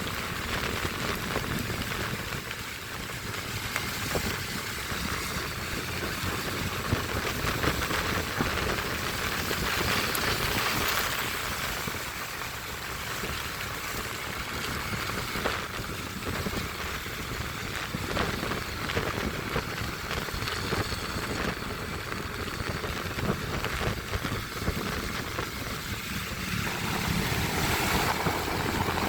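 Steady rain hiss mixed with motor vehicle traffic on a wet road, with the noise swelling and easing as vehicles pass.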